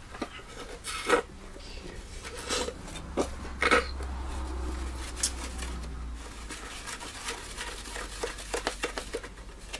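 A half-frozen Slurpee being sucked up through a straw from a plastic cup: scattered crackles and clicks, the strongest about a second in and again near four seconds. A low hum runs underneath for a few seconds in the middle.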